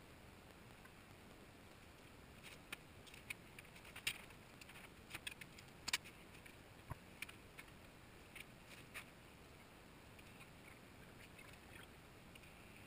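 Scattered light clinks and knocks of stainless steel tubing being handled and set down on the workbench, about a dozen over several seconds, the loudest about six seconds in.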